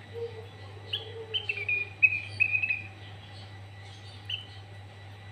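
Sooty-headed bulbul (kutilang) singing: a quick run of short, clear whistled notes about a second in, after a lower drawn-out note, then single call notes near the end. A steady low hum lies underneath.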